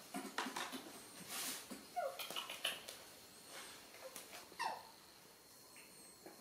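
Baby macaques giving short high calls that fall in pitch, one about two seconds in and another a couple of seconds later, among scattered light taps and clicks.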